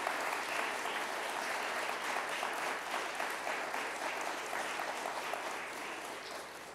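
A seated audience applauding, a dense patter of many hands clapping that tapers off near the end.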